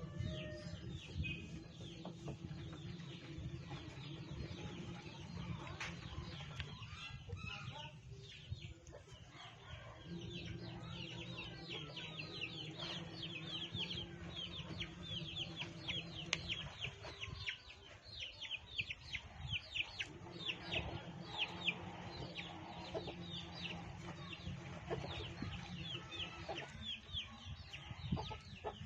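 Chickens clucking and chirping, with long runs of short, quick falling chirps, over a steady low hum.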